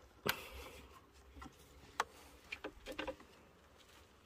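A few sharp clicks and light knocks as hands work a new timing belt onto the engine's sprockets. The loudest comes just after the start, another about two seconds in, and a short cluster around three seconds.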